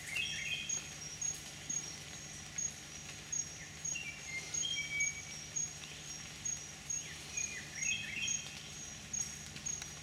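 Tropical rainforest ambience: a high chirping note repeats about twice a second, joined three times by a quick run of short whistled bird notes stepping in pitch, over a low steady hum.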